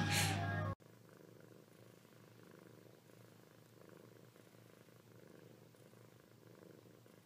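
Domestic cat purring faintly and steadily in gentle swells while its belly is rubbed. Under a second in, a louder sound with a steady low hum cuts off abruptly.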